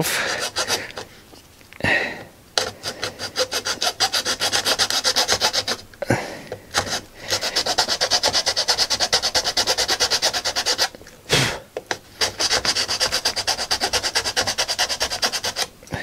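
A hand file rasping across the orange plastic of a drill's case half in quick back-and-forth strokes, in runs broken by short pauses about two, six and eleven seconds in. The file is taking down a ridge inside the case that presses on the trigger switch.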